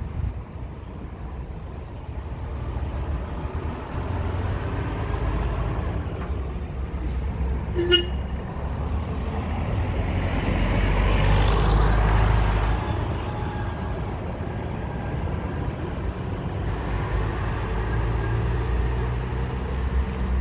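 Busscar intercity coach's diesel engine running as it pulls out and drives past close by, loudest and with a rush of tyre and air noise as it goes by, then easing as it moves away. A short horn toot about eight seconds in.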